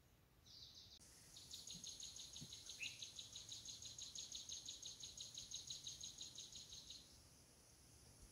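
An animal's high, rapidly pulsing trill of about seven even pulses a second, lasting about five seconds and then stopping, over a faint outdoor background with a brief chirp.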